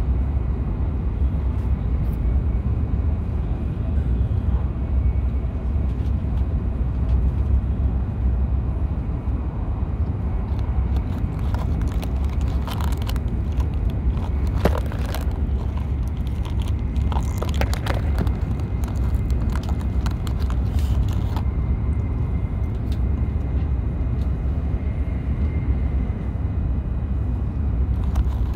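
Joetsu Shinkansen bullet train running at speed, heard inside the passenger cabin as a steady low rumble, with a few brief clicks around the middle.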